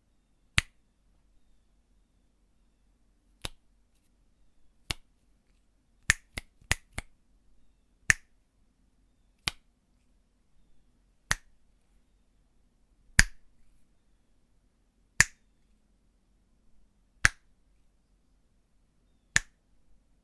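Fingers snapping: about fourteen single sharp snaps, mostly a second or two apart, with a quick run of four about six seconds in.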